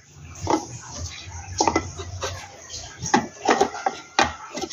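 Hard plastic clicking and knocking as the clear lid of an Oxone mini chopper is handled over its bowl of garlic and shallot cloves, about eight separate light taps.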